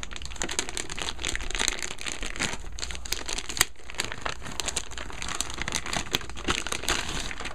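Clear plastic bag crinkling as it is handled and pulled off an electronic device by hand. It makes a dense run of small, sharp crackles.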